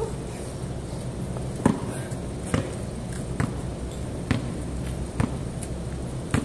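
A basketball being dribbled on a concrete court: a sharp bounce about once a second, six in all, starting a little over a second in.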